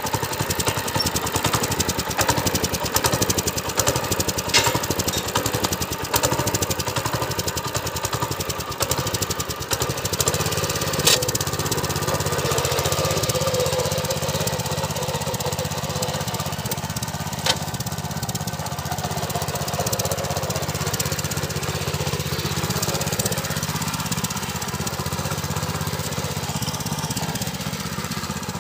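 Engine of a walk-behind mini power tiller running steadily with a fast even beat, just after being started. The running evens out about ten seconds in, and a few single sharp clicks stand out over it.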